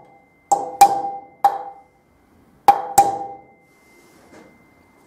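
Hammer tapping a metal drift to drive a wheel bearing into a motorcycle wheel hub, seating it until it just touches the inner spacer tube. Five sharp metal taps with a short ring: three in the first second and a half, then two close together.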